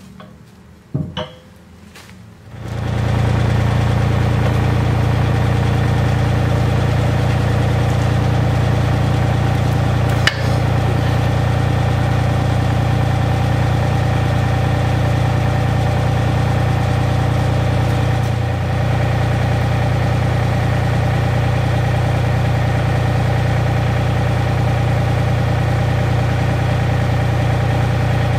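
A few metal clinks, then a machine's motor starts up about two and a half seconds in and runs steadily with a low hum, with a single sharp click and, later, a brief dip.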